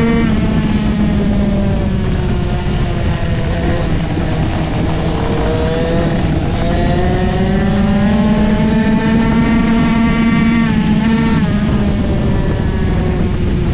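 65cc two-stroke flat track motorcycle engine at racing speed, heard from the bike itself over a steady rush of wind. Its pitch falls as the throttle is rolled off right at the start and again about eleven seconds in, and climbs back up in between as the rider gets back on the gas.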